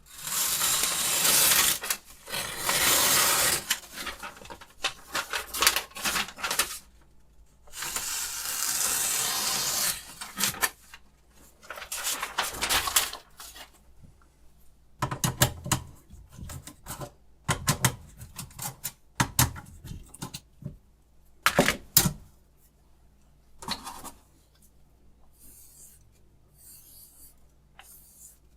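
Three long, dry scraping strokes of a sharpening stone or blade, then a run of sharp clicks and light knocks from handling the knife-sharpening rig, fading to faint scratches near the end.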